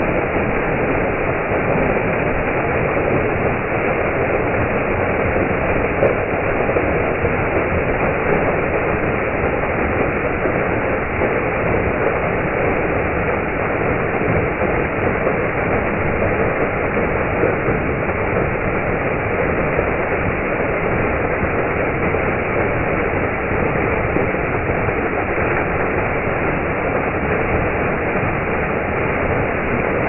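A small rocky waterfall pouring and splashing onto boulders close to the microphone: a steady, unbroken rush of falling water.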